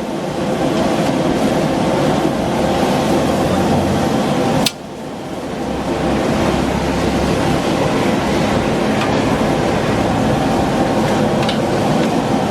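Gas wok burner running steadily for fast-fried noodles. The noise drops suddenly about five seconds in and builds back up.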